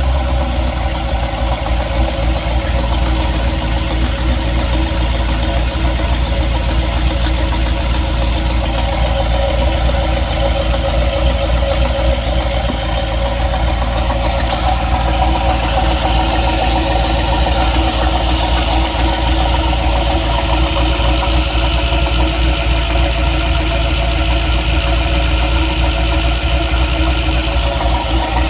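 Vehicle engine idling steadily with a knocking noise whose cause is unknown.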